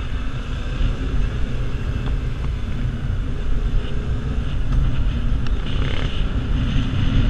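Onboard sound of a Yamaha MT-07 motorcycle on the move: the engine running steadily under heavy wind noise on the microphone.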